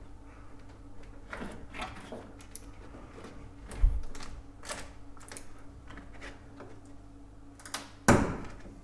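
Irregular clicks and knocks of hand tools on car bodywork as a stuck part is worked loose, with a dull thump about four seconds in and a louder knock near the end.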